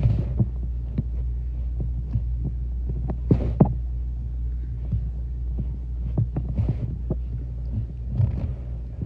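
Scattered soft taps and knocks of hands pressing and crimping calzone dough on a nonstick mat, over a steady low hum.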